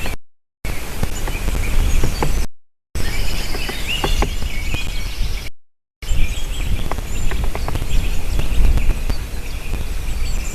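Great spotted woodpecker knocking on wood in irregular single taps, not a drumming roll, while other birds chirp and a low wind rumble runs underneath. The sound cuts out completely three times, briefly each time.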